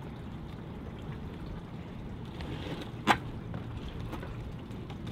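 Heavy barnacle-crusted kayak hull knocking once, sharply, against the edge of a wooden dock about three seconds in as it is hauled out of the water, over a steady low outdoor background.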